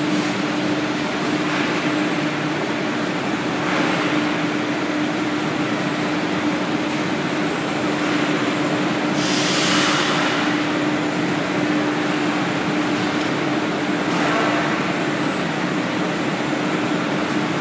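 Five-plate leather vacuum dryer running: a steady machine hum with one held low tone under a broad noise. A brief hiss rises over it about nine seconds in.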